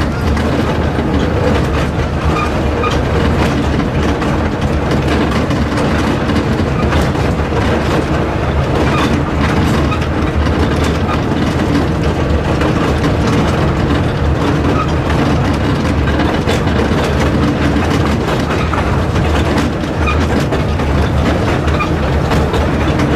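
Railway carriage running along the track, heard from on board an open-sided coach: a steady low rumble with a dense run of small rattling clicks from the wheels and rails.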